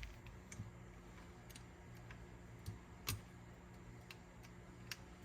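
Faint, irregular clicks and ticks of small metal mechanism parts and hand tools being handled while a cassette deck's lever and spring assembly is taken apart, the sharpest click about three seconds in.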